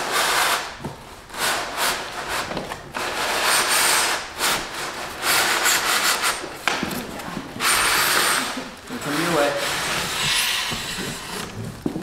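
Cardboard shipping box being slid up off a foam-packed refrigerator, the cardboard rubbing and scraping against the polystyrene packing in about half a dozen long pulls.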